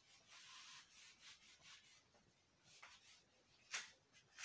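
Handheld eraser wiped back and forth across a whiteboard: faint, repeated rubbing strokes, with one short louder stroke about three-quarters of the way through.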